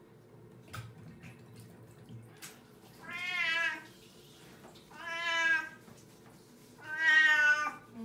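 A wet house cat meowing three times, about two seconds apart, while it is being bathed; each meow is a drawn-out call under a second long, and the last is the loudest.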